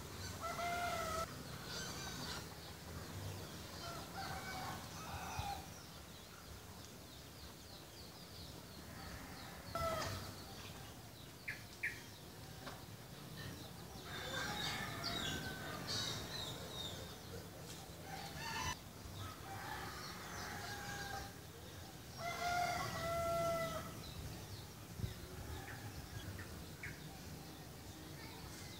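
Roosters crowing several times, each crow a held, pitched call, with shorter high bird chirps in between.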